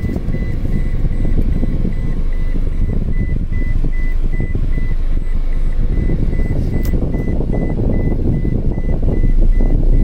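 Engine and road rumble inside a vehicle driving along a rough dirt road, with a faint high beep repeating quickly and evenly.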